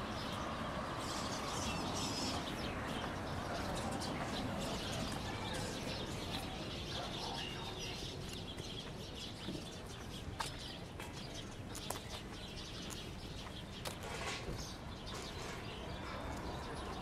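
Street ambience: a steady wash of traffic noise with birds chirping in the street trees, many short high chirps scattered throughout.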